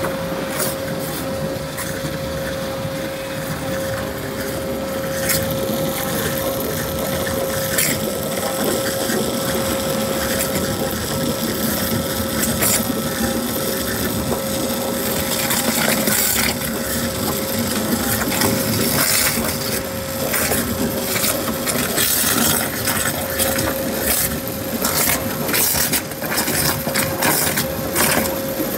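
Flow CNC waterjet with a Paser ECL Plus head cutting with garnet abrasive: a steady loud hiss with a constant tone and frequent irregular crackles and clicks.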